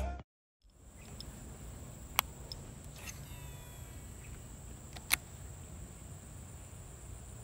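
Quiet outdoor ambience beside a plantation ditch: a steady high insect drone over a low rumble, with two sharp clicks about three seconds apart and a few faint chirps between them. Intro music cuts off right at the start.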